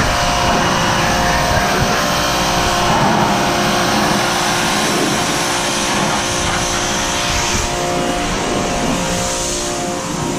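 An engine running steadily under a loud, even rushing noise, with no break or change in speed.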